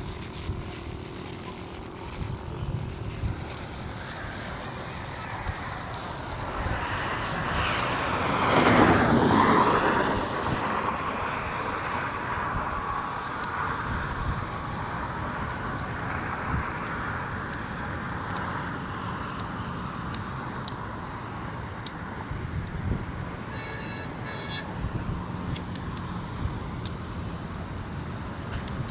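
Road traffic along a highway, a steady background hum, with one vehicle passing close by: its sound swells, peaks about nine seconds in, and falls away.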